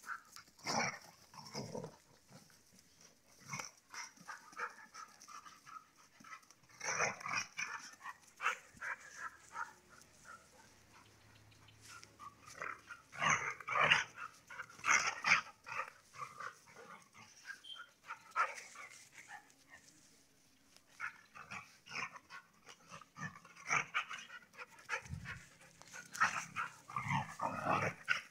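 Two dogs play-fighting and growling at each other in short, irregular bursts, with brief lulls a third and two thirds of the way through.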